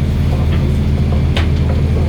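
A fishing boat's engine runs steadily with a low drone, and a single sharp click comes about one and a half seconds in.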